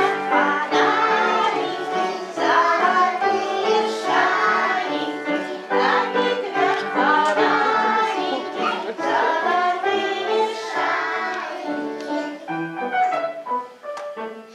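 A song with a group of young children singing together over musical accompaniment, fading down near the end.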